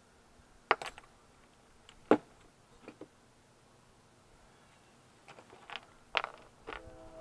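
Scattered sharp clicks and taps of small parts salvaged from circuit boards being handled and dropped, about eight over several seconds.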